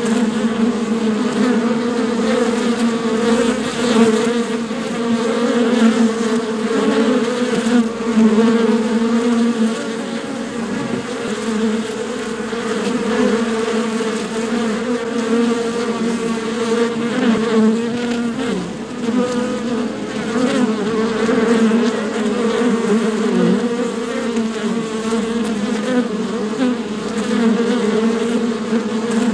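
Bees buzzing continuously, a steady drone whose pitch wavers slightly.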